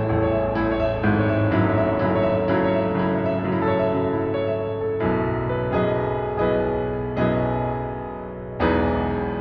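Solo piano playing a slow, improvised arrangement: sustained chords struck one after another, with a brief fade before a loud chord is struck near the end.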